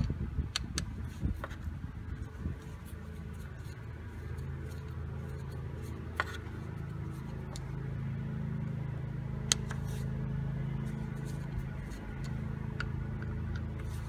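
Phillips screwdriver turning screws in a Toyota Corolla's aluminium distributor housing, with scattered small metal clicks and scrapes. Under it runs a steady low mechanical hum.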